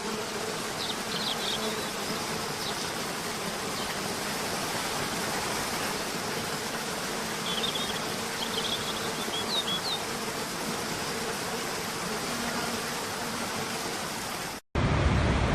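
Steady rush of falling water, with a faint steady buzz underneath and a few short, high bird chirps about a second in and again around eight to ten seconds. Near the end it cuts abruptly to a louder, lower ambience.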